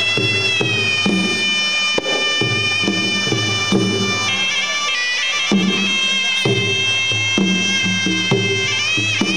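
Traditional Cambodian boxing music: a sralai reed pipe playing a sustained, wavering melody over steady skor yaul drum beats, which pause briefly midway.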